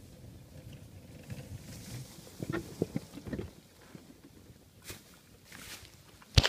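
Footsteps crunching through dry grass, a handful of short rustling crunches about two and a half to three and a half seconds in and a few fainter ones later, then one sharp, loud knock just before the end.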